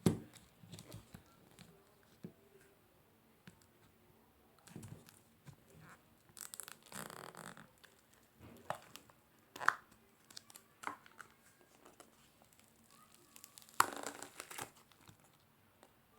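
Hands pressing, poking and stretching slime: irregular sticky clicks and small pops, with two longer crackling stretches, one about six seconds in and one near the end.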